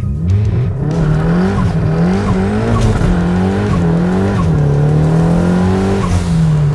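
Nissan 180SX's turbocharged SR20DET four-cylinder revving hard in a burnout, its pitch rising and falling several times, then held steadier from about four seconds in, with tyre noise underneath.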